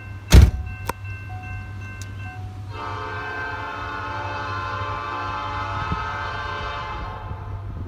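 Diesel locomotive air horn sounding one long chord, starting about two and a half seconds in and stopping near the end, over a steady low rumble. A loud sharp knock comes just before half a second in.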